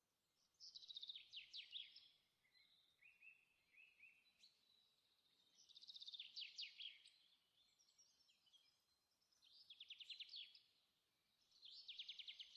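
A small songbird singing faintly: four short trilled phrases of quick, repeated falling notes, a few seconds apart, with softer chirps between them.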